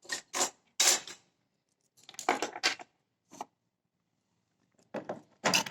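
Hands handling wires and parts on a workbench while connecting a test motor to a controller: a few short clicks and rattles in small clusters, separated by gaps.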